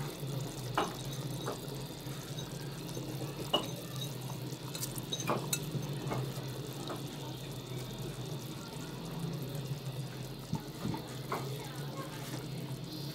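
Spiced chickpea broth boiling hard in a pot with a heap of rice just added: steady bubbling with scattered small pops, over a low steady hum.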